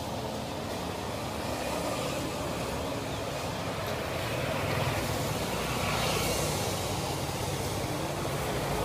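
Steady outdoor street ambience: a continuous rumble of traffic noise with no single sound standing out.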